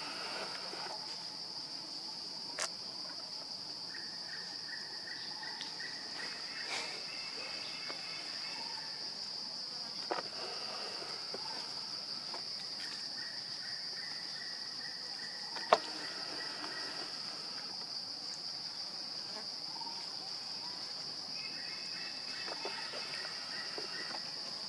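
Steady high-pitched drone of insects. A lower, pulsing chirr comes and goes three times, and a few sharp clicks stand out, the loudest about two-thirds of the way in.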